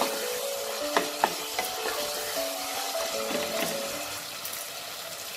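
Diced carrots, green beans and tomato frying in oil in a deep pan, sizzling steadily while a spatula stirs them, with sharp spatula knocks against the pan near the start and twice about a second in.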